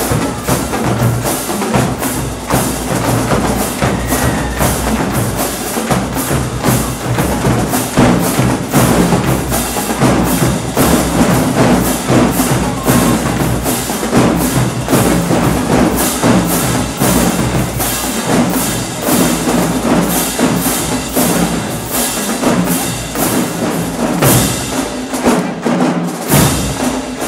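Marching drumline playing a fast cadence: snare drums cracking out dense rhythms over pounding bass drums, with crash cymbals. The low bass-drum beats drop out for a couple of seconds near the end while the snares carry on.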